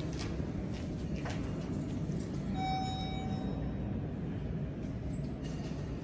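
Schindler traction elevator's hall lantern chiming once, a single electronic tone just under a second long about two and a half seconds in, over a steady low background rumble.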